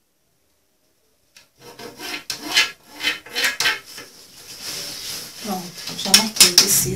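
Hands rubbing and sliding tricoline cotton fabric across a tabletop: a run of irregular rasping strokes that starts about a second and a half in, loudest near the end.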